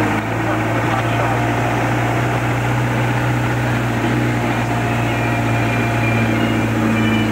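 Vehicle engine running at a steady low drone in slow traffic, heard from inside the cabin, with faint voices under it.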